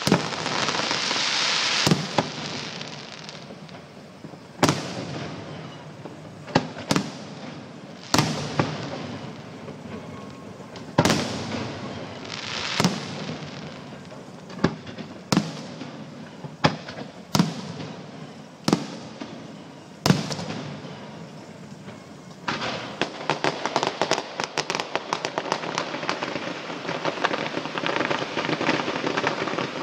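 Aerial firework shells bursting: about a dozen separate bangs a second or two apart, each followed by a ringing tail. About two-thirds of the way through they give way to a dense, continuous run of rapid crackling pops.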